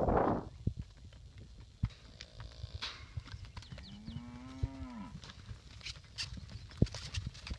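A calf bawling: a faint short call, then one long call of about a second and a half that rises a little and drops off at the end. A brief rush of noise at the very start and a few sharp knocks are scattered through, the loudest about seven seconds in.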